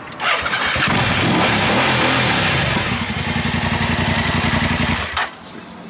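2019 BMW F 850 GS parallel-twin engine cranked and started, its revs rising and falling briefly, then running at a steady idle before it is switched off near the end. This is a test start after its immobilizer module was unlocked and its original coding written back.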